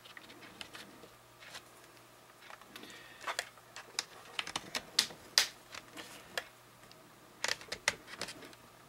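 Plastic screen bezel of an Acer Aspire V5-552 laptop being pried off the lid with a plastic spudger: an irregular run of sharp clicks and snaps as the plastic flexes and its clips let go, thickest in the middle and again near the end.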